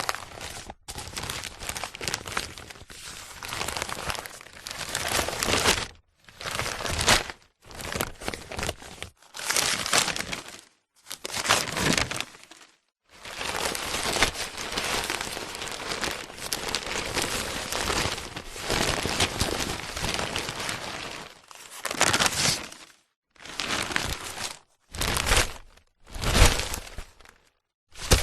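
A newspaper being handled, its paper rustling and crinkling in a string of noisy passages broken by short silences, some long and some brief.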